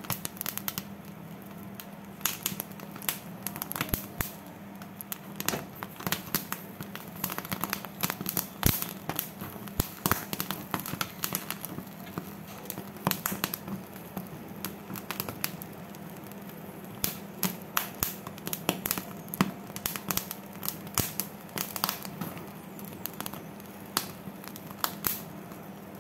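Corn kernels crackling and popping irregularly as the cob roasts over a gas stove burner flame, over a steady low hum.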